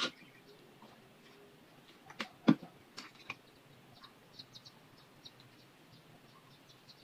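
Handling noise from alcohol-bottle and cotton-ball supplies while a digital thermometer is wiped down: a few clicks and knocks in the first three seconds or so, the loudest a sharp knock about two and a half seconds in, then faint, short, high ticks.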